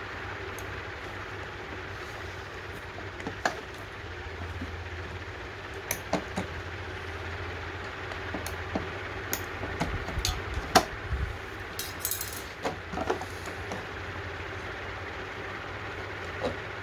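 Scattered sharp clicks and knocks of small metal parts and tools being handled while a mower carburetor is reassembled, busiest in the middle stretch, over a steady low hum.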